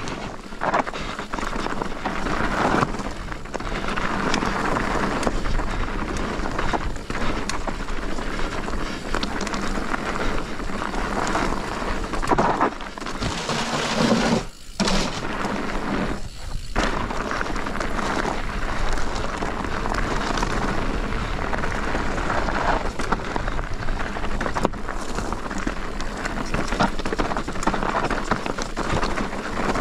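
Commencal Meta TR mountain bike descending a dirt trail: constant rushing wind on the action camera's microphone over rumbling tyres, with a steady run of knocks and clatter from the bike over bumps. The noise drops out briefly twice about halfway through.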